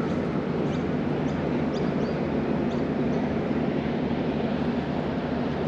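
Steady outdoor rumble, wind and background noise at an urban creek, with a few faint, high bird chirps in the first few seconds.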